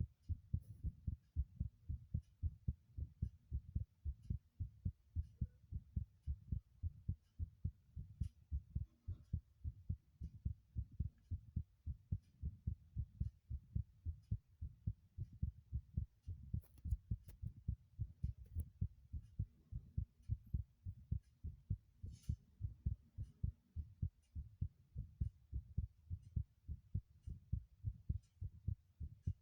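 Heartbeat: a steady, regular run of low, dull thumps, about two a second.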